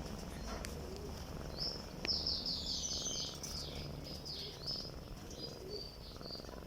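Small birds chirping: scattered high, falling chirps and a quick run of about seven notes about two seconds in, over a steady low rumble from a cat breathing and purring close to the microphone.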